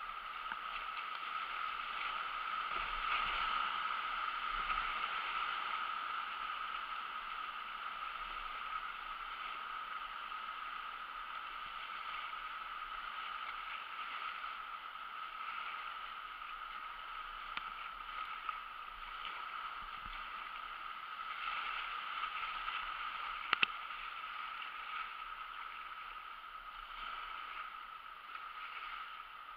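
Fast river current rushing and splashing against a kayak's hull as it runs through choppy riffles, with one sharp knock about two-thirds of the way through.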